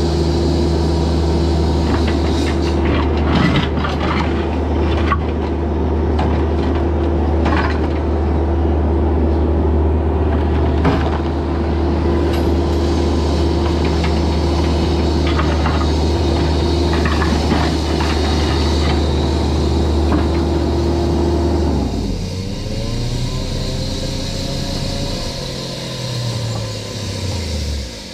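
Bobcat E26 mini excavator's diesel engine running steadily at high speed, with scattered sharp knocks. About 22 seconds in the engine note drops, and near the end it falls away in pitch.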